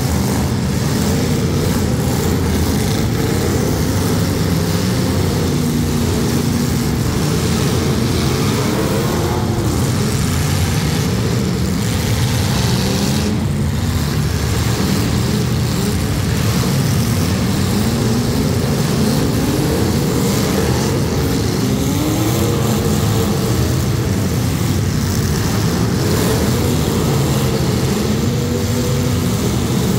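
Several demolition derby cars' engines running and revving at once, a loud continuous drone whose pitch keeps rising and falling.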